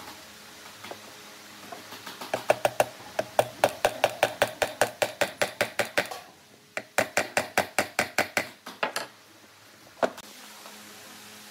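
Small hammer tapping a metal ring fitting into hardwood in two quick runs of light taps, about six a second, with a short pause between them, then a single knock near the end.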